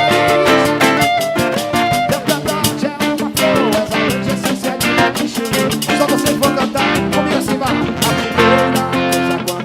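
Live band music with guitar and drum kit playing a steady upbeat rhythm.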